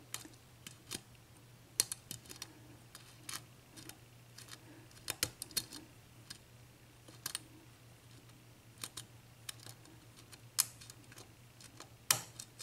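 Irregular light metallic clicks from a lock pick lifting the serrated pins of a Dorma 7-pin mortice cylinder under tension, a click every second or two, over a faint steady low hum.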